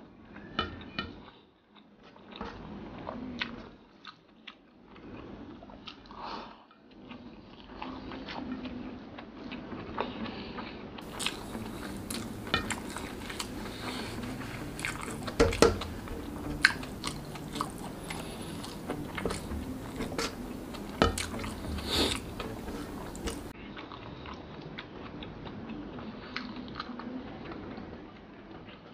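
Close-miked chewing and mouth sounds of a person eating rice and sardines by hand, with wet smacks and frequent sharp clicks, the loudest clicks about halfway through.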